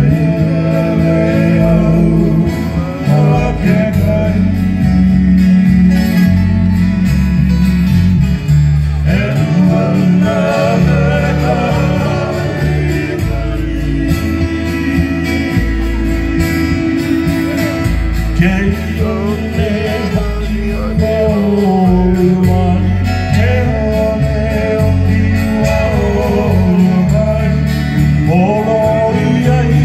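Live Hawaiian music: male voices singing in harmony over strummed acoustic guitars and a bass line.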